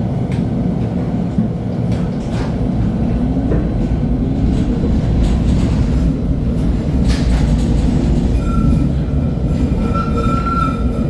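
LHB TW2000 light-rail car (built 1997) running along the track: a steady low rumble with scattered knocks from the wheels and running gear. A hum rises in pitch about three seconds in, and a thin high squeal sets in about eight seconds in.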